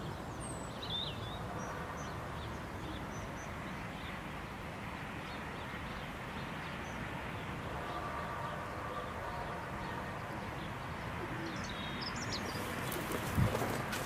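Steady outdoor rushing background with a few faint bird chirps, a faint hum appearing for a couple of seconds past the middle, and a few knocks near the end.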